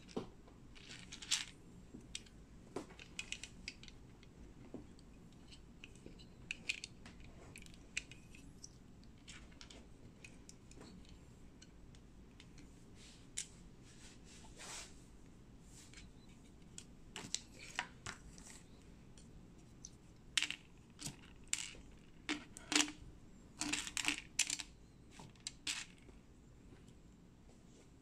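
Small plastic building bricks clicking and clattering as they are handled and pressed together by hand, in scattered sharp clicks that come thicker and louder in the last few seconds.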